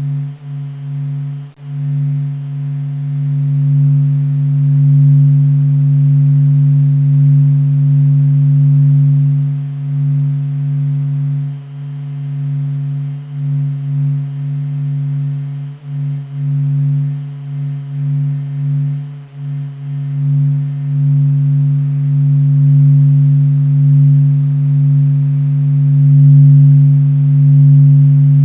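Sonified Sun: SOHO observatory data of the Sun's waves and movement turned into sound, heard as a steady low droning hum with a fainter higher overtone, slowly swelling and fading in loudness.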